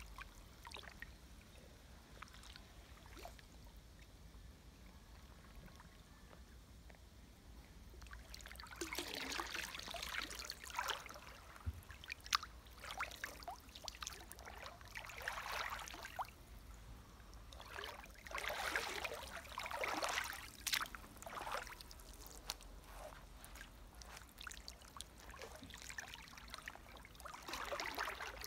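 Water splashing and sloshing as a person stands up and wades through a shallow creek, feet and legs moving through the water. It is quiet for the first several seconds, then comes in irregular bursts of splashing with calmer stretches between.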